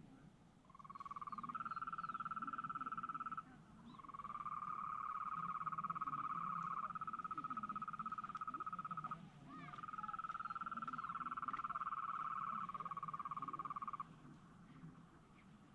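Frogs calling in long, steady trills, three of them lasting several seconds each, overlapping so the pitch shifts in steps.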